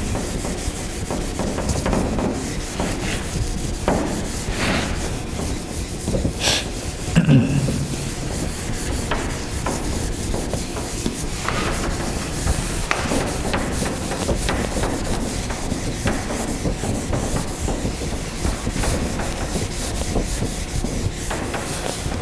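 A felt whiteboard eraser rubbing over a whiteboard, a continuous scrubbing as it wipes off marker writing, with a louder bump about seven seconds in.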